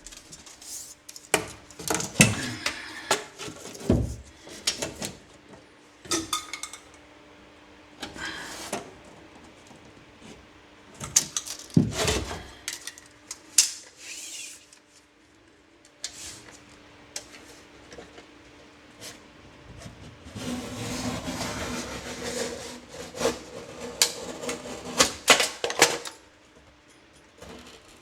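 Hand work on a drywall patch: a string of sharp clicks and knocks from tools and gypsum board being handled, with a stretch of scraping about two-thirds of the way in.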